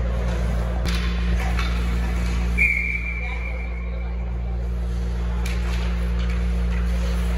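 Ice rink ambience: a steady low hum with distant crowd voices and a few faint knocks, and one short, single-pitch whistle blast about two and a half seconds in, a referee's whistle stopping play.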